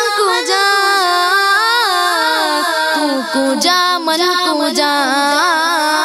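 A child's voice singing an Urdu naat in a long wordless, ornamented melodic run, the pitch sliding and turning without a break.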